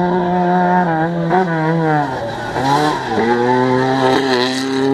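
Rally car engine held at high revs, dropping in pitch about two seconds in as the driver lifts for the corner, then pulling steadily again. A hiss of loose dirt and gravel accompanies it as the car slides sideways past.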